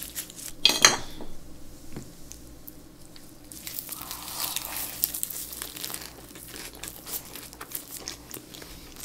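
Close-miked eating of a lettuce wrap with boiled pork: crisp lettuce leaves crinkle loudly about a second in, then come crunchy bites and wet chewing from about three and a half seconds in, with small mouth clicks after.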